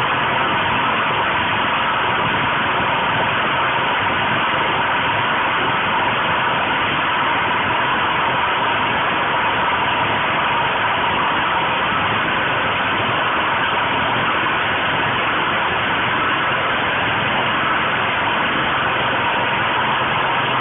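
Portable generator engine running steadily, a constant noisy drone with a steady high tone riding over it.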